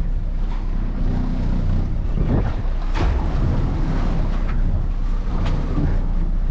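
Strong wind buffeting the microphone on a small boat at sea: a steady low rumble with a few sharp knocks, the loudest about three seconds in.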